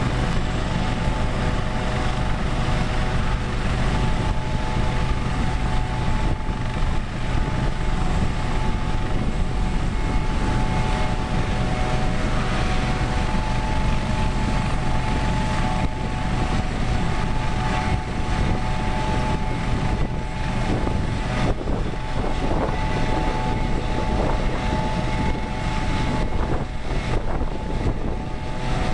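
Airbus Helicopters AS365 N3 Dauphin running on the ground, its twin turboshaft engines making a steady whine over rotor noise, in an engine test run after preventive maintenance.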